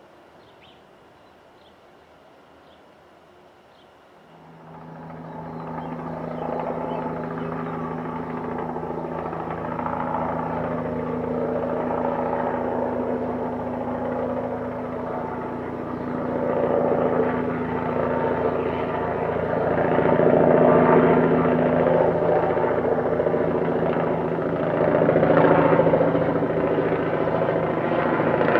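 Helicopter flying low overhead, its rotor beat and steady engine hum starting about four seconds in after a faint background and swelling louder as it passes.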